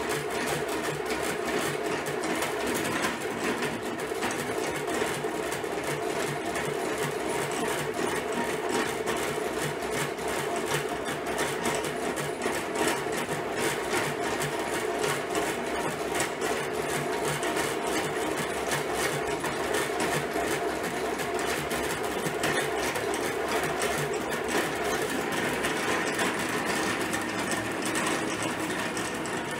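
Hand-cranked Dadant radial honey extractor spinning steadily, its gear drive and reel making a continuous mechanical running sound as the frames are spun to sling the honey out.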